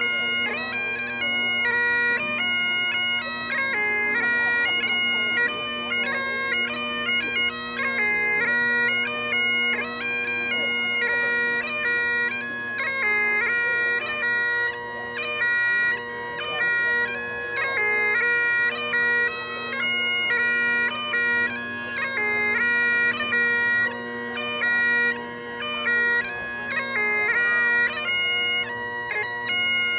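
Bagpipes playing a traditional tune: a melody moving step by step over steady, unbroken drones.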